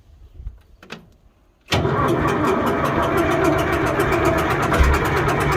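An old tractor's diesel engine starts suddenly about two seconds in and keeps running with a fast, even clatter. It is a cold start.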